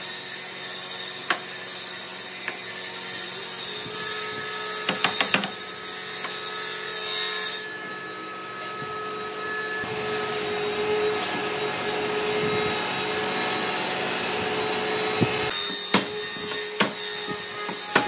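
Wooden legs and rails of a frame being handled and fitted together on a workbench: wood rubbing and scraping on wood, with a few sharp wooden knocks. Several of the knocks come near the end, as a mallet taps the top rail into the frame's joints.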